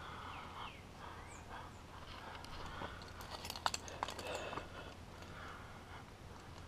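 Climbing gear on a harness clinking, with a few sharp metallic clicks about three to four and a half seconds in, over the faint rustle and scuff of a climber's hands and body moving on the rock.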